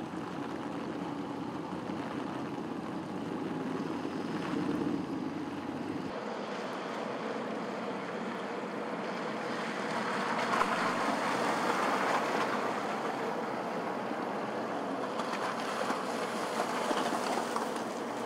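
Traffic on a wet, slushy road: a steady rush of tyre hiss that swells twice in the second half as vehicles pass.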